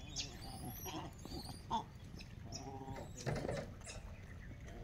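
Animal calls with a bleating quality, the clearest a bit past the middle, over scattered knocks and rustling.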